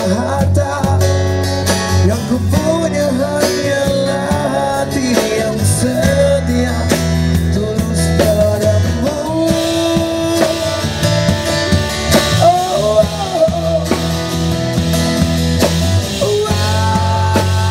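Live band music: guitar and drum kit playing together, with a melody line that bends in pitch over a steady bass.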